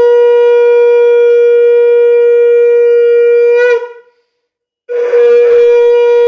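Conch shell (shankha) blown in long, steady, loud blasts: one held for about four seconds that wavers and dies away, then after a pause of about a second a second blast starts, with a brief break near the end.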